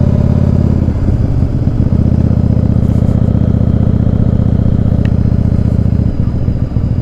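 Yamaha Virago XV750's V-twin engine running while the bike is ridden, a steady low exhaust note that changes about a second in and again near the end.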